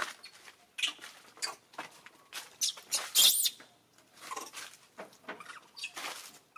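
Long-tailed macaques giving a run of short squeaks and squeals, the loudest a shrill squeal a little over three seconds in.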